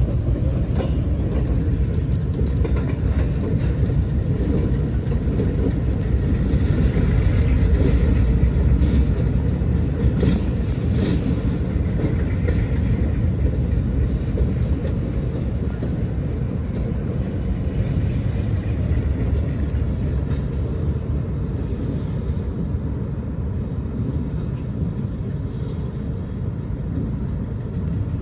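Diesel locomotive running, a heavy steady rumble that builds over the first several seconds and then slowly fades.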